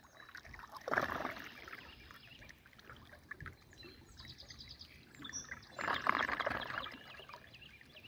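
Pond water gurgling and slurping down a 12-inch overflow drain through its cage-style trash guard, now taking a full pipe, in two surges, about a second in and around six seconds. A bird chirps faintly near the middle.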